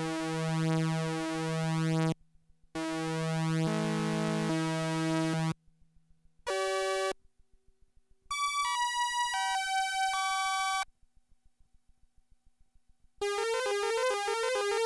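Korg ARP Odyssey analogue synthesizer played dry, straight from its output with no effects. It holds a pulsing, wobbling note, plays a few separate notes with short silences between, then a run of high, bright notes stepping downward. A fast repeating pattern starts near the end.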